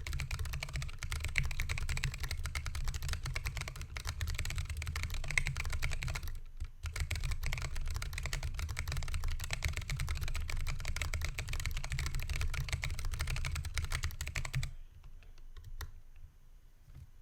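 Fast continuous typing on a Lily58 Pro split mechanical keyboard with Hako Royal Clear tactile switches and 3D-printed PLA DSA keycaps, the PCB resting on foam in a 3D-printed case. There is a brief pause about six and a half seconds in, and the typing stops about 15 seconds in, leaving a few faint clicks.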